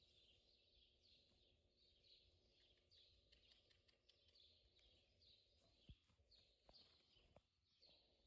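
Near silence, with a faint high chirp repeating evenly, a little under twice a second, and a few faint clicks near the end.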